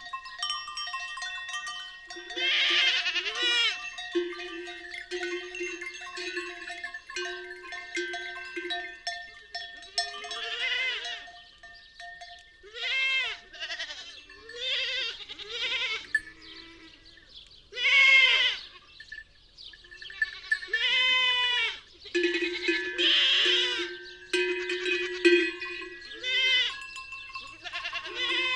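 A flock of bleating livestock, many quavering calls about a second long following one another and overlapping, over the steady ringing of animal bells.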